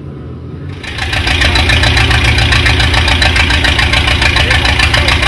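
1954 Buick Roadmaster's Nailhead V8 engine idling loudly with a fast, even beat. It comes in abruptly about a second in, after a low hum.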